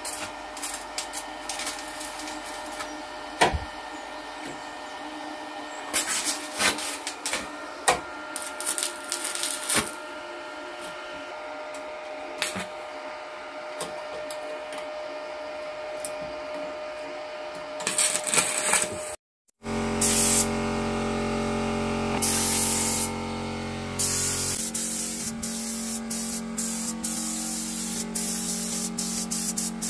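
Electric welding repair on a tractor cab's rusted steel panel: the arc crackles in bursts over a steady hum, with scattered clicks between. Then a compressed-air paint spray gun hisses in bursts of a second or more.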